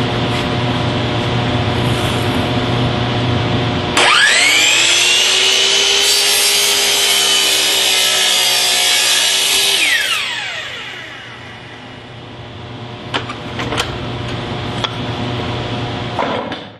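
Hitachi sliding compound miter saw: after a steady mechanical hum, the saw motor starts about four seconds in with a rising whine and runs at full speed while the blade cuts through a board. Near the middle the trigger is released and the whine falls away as the blade coasts to a stop. A few sharp clicks and knocks follow near the end.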